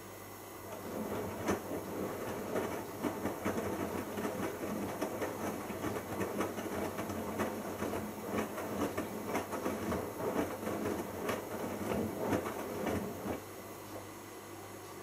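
Bosch Logixx washing machine drum turning during the main wash, tumbling wet laundry with irregular sloshing and clattering. It starts about a second in and stops abruptly near the end as the drum pauses, leaving a steady low hum.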